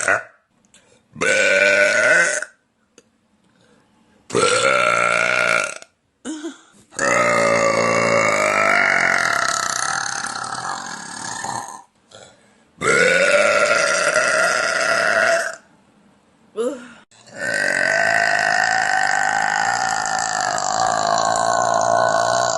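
A woman letting out a series of long, loud, drawn-out burps, five in a row with short gaps between them. The longest lasts nearly five seconds, and the last one is still going at the end.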